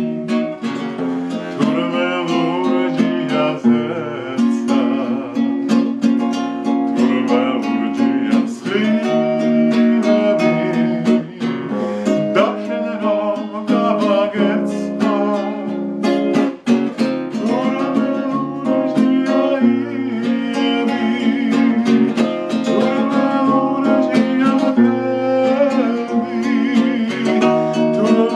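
A man singing a Georgian song in a wavering voice while strumming a steel-string acoustic guitar in a steady rhythm.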